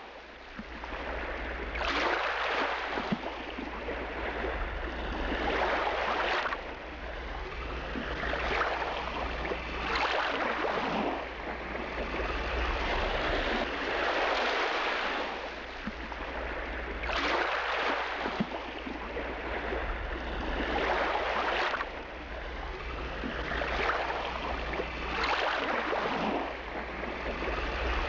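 Water rushing and splashing along the hull of a motorized river passenger boat under way, swelling and fading about every four seconds over the boat engine's steady low hum.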